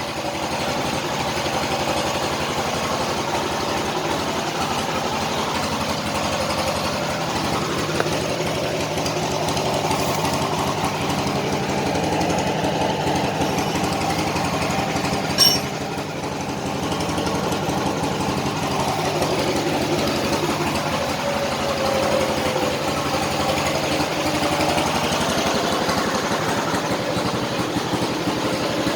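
Isuzu Panther pickup's diesel engine idling steadily. A single sharp click sounds about halfway through.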